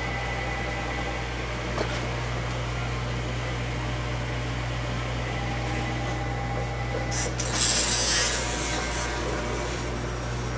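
Corded electric hair clipper with a number 8 guard humming steadily, with a louder rasping stretch about seven seconds in as it cuts through the hair on top of the head.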